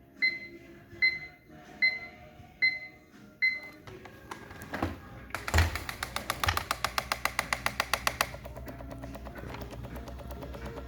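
iLife robot floor cleaner beeping five times, evenly spaced, then its motors start about four seconds in. A fast, even ticking of about seven a second runs for roughly three seconds and gives way to a steady running sound. The owner takes the ticking for the fault of a robot that won't clean properly.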